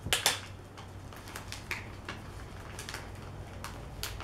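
Hands handling wrapping paper and clear tape while taping a paper tag onto a wrapped gift: a sharp crackle of tape or paper just after the start, then faint rustles and light clicks.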